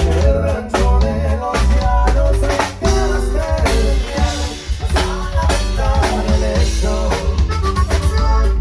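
A live band playing during a sound check: a drum kit with bass drum and snare over a heavy bass, with keyboard or organ lines.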